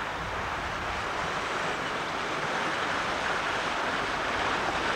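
Bicycle wheels ploughing through knee-deep floodwater on a flooded road: a steady splashing wash of water that grows a little louder near the end.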